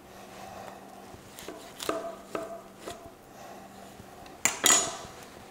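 Butcher's knife cutting between the rib bones of a pork rack to take off chops, with a few short ringing knocks of the blade around two seconds in and a pair of sharp, louder knocks near the end.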